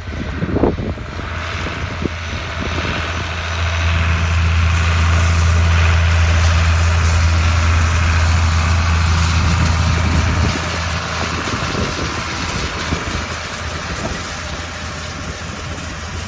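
Engine of heavy farm machinery running with a deep, steady hum. It grows louder about four seconds in and eases back after about ten seconds.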